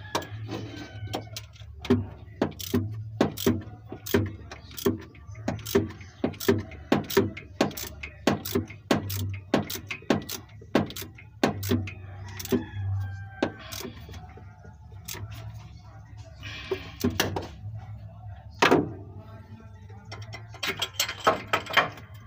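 Irregular metallic clicks and knocks of hand tools, a socket wrench and spark plugs being handled, during a spark plug change on a small engine, over a steady low hum.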